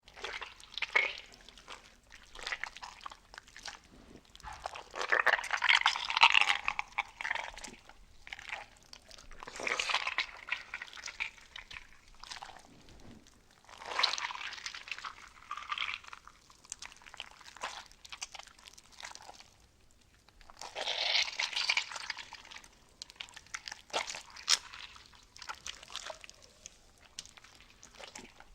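Crisp crunching and crackling in irregular bursts of several seconds each, with short quiet gaps between them.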